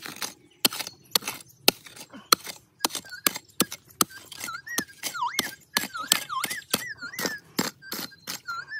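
A pick striking and digging into hard, gravelly ground with quartz in it, about two sharp strokes a second. From about halfway, a bird whistles in wavering notes that rise and fall.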